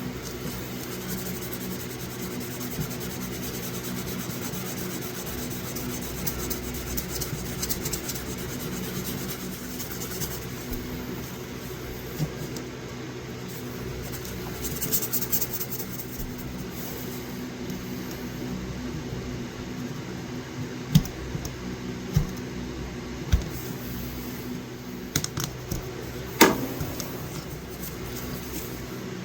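Steady low mechanical hum like a fan, with faint rubbing and a few sharp clicks and taps in the last third, and one quick rising squeak near the end.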